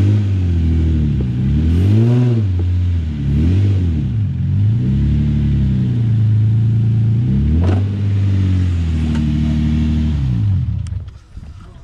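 Infiniti G35's 3.5-litre V6 revving in repeated throttle blips between idle as the car is driven up onto ramps under load. The engine stops about eleven seconds in.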